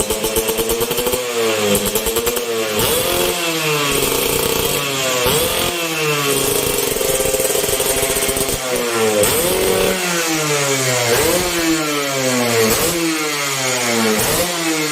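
Motorcycle engine breathing through an aftermarket Thunder racing exhaust pipe, revved again and again. The pitch swings up and falls back every second or so, and is held steadier for a few seconds in the middle.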